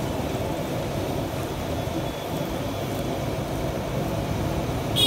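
Steady roar of a commercial gas wok burner heating a wok of simmering sauce. Near the end, a short metallic clink of the steel ladle against the wok.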